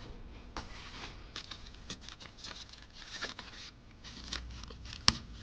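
Hands handling plastic parts and wiring: scattered light clicks and rustling, with one sharp snap about five seconds in.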